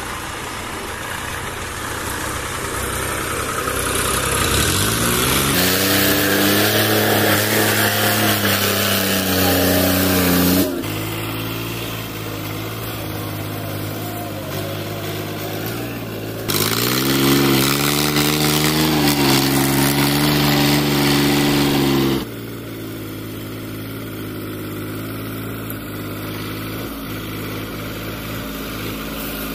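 Diesel farm tractor engines hauling sugarcane-loaded trailers: the engine revs up about four seconds in and runs hard under load, then the sound drops abruptly, rises again to a hard-working pull, and drops back to steadier running in the last seconds.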